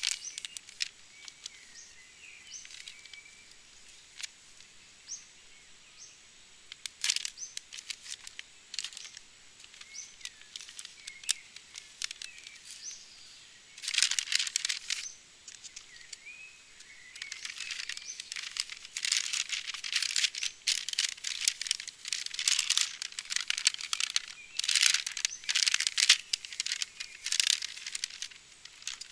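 MRE packaging being handled: the plastic pouches, wrappers and paper sheet crinkle and rustle in irregular bursts, busiest in the second half. Faint bird chirps sound in the pauses.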